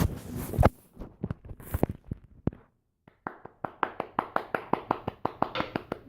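Scattered sharp taps and knocks, then a brief pause and a steady, even run of quick taps, about five a second, for the last three seconds.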